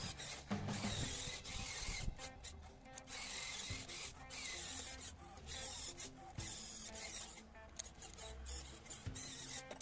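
Radio-controlled toy bulldozer's electric drive motors whirring and its metal tracks grinding through sand as it crawls along, with background music.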